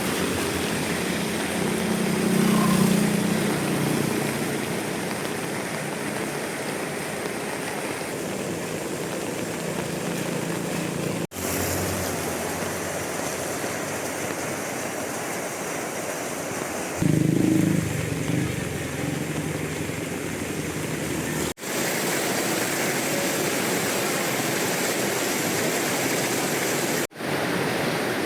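A steady rushing outdoor noise, with a low rumble swelling briefly twice. The sound drops out sharply three times where the audio is cut.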